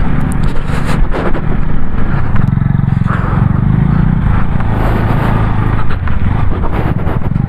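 Motorcycle engine running steadily at low speed on a rough off-road track, with scraping and knocking road noise over it.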